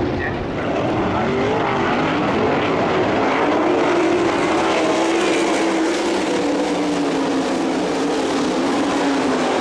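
Sprint cars' methanol-burning V8 engines racing together in a pack, a loud steady sound whose pitch wavers up and down as the cars come around.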